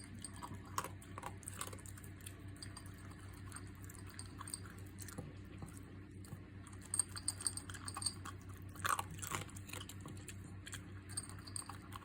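Papillon-corgi mix puppy chewing its food, with irregular short crisp crunches that come thicker and faster a little past the middle.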